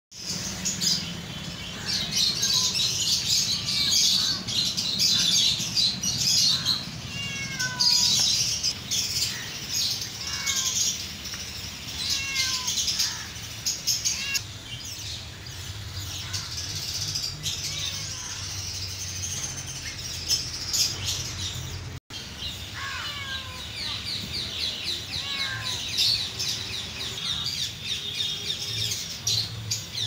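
Many small cage birds chirping and twittering together in a continuous chatter, with scattered falling chirps among them, over a steady low hum. The chatter breaks off for a moment about two-thirds of the way through.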